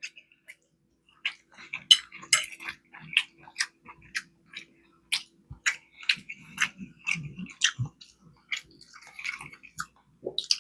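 Close-miked chewing with wet mouth smacks and clicks, coming irregularly.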